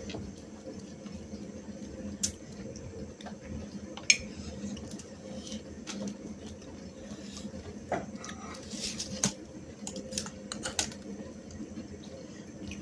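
Scattered light clicks and taps of fingers and a spoon against stainless steel plates and bowls as rice and curry are mixed and eaten by hand, over a steady low hum.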